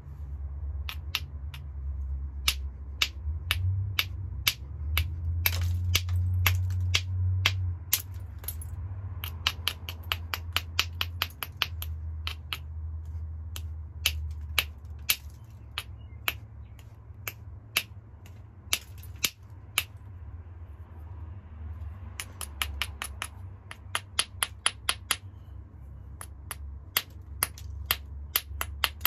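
Small hammerstone tapping along the edge of a hornstone biface during flintknapping: a run of sharp stone-on-stone clicks, a few a second, with a quick flurry of them about 22 seconds in, over a steady low hum.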